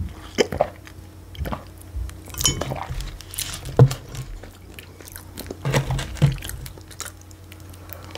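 A person chewing and biting food close to the microphone, with irregular short mouth sounds every half second or so.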